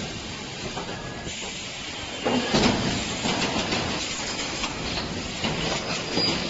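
3D EPS wire mesh panel welding machine running: steady machine noise with scattered knocks and a louder burst of clatter about two and a half seconds in.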